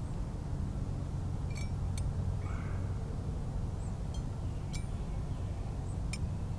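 Steady low rumble of wind on the microphone, with faint scattered bird chirps and small ticks.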